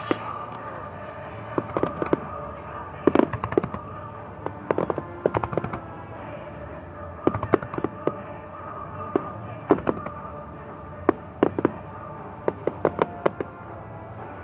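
Fireworks display: aerial shells bursting in irregular clusters of sharp cracks and bangs, some in quick runs and some a second or so apart.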